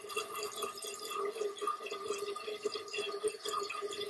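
Toilet tank refilling through a newly installed American Standard float cup fill valve: water running and trickling into the tank, with a steady tone under it.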